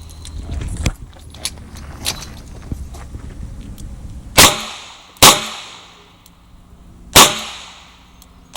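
Small metallic clicks and handling noises for about four seconds, then four shots from a Chiappa Rhino .38 Special revolver, each a sharp crack with a short echo, spaced unevenly about one to two seconds apart.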